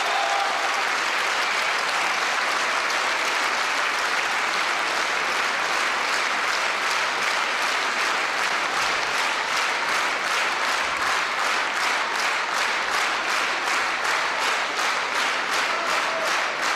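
Large audience applauding at the end of a song. About halfway through, the scattered clapping turns into rhythmic clapping in unison.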